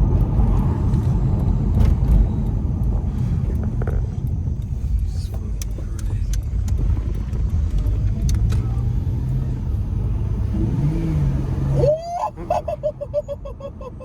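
Acura TL's V6, fitted with a custom cold air intake, running while the car is driven, under heavy low road and wind rumble. A brief rising engine note comes near the end, and then the noise drops off sharply.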